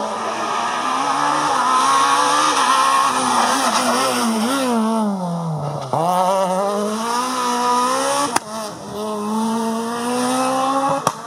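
Renault Clio S1600 rally car's engine held at high revs on the approach, then the revs fall with small blips as it brakes and shifts down for a hairpin. Near the middle it picks up hard and the revs climb through the gears, with a sharp crack and a drop in pitch at each of two upshifts.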